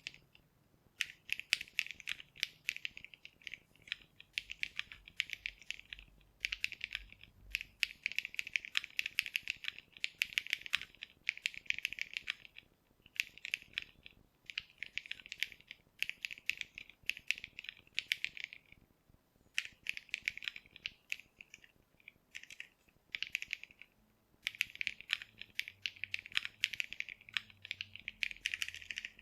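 Typing on a Monsgeek M1 mechanical keyboard fitted with Seasonal Gradient Color keycaps. The keystrokes come in quick runs of one to three seconds with short pauses between them.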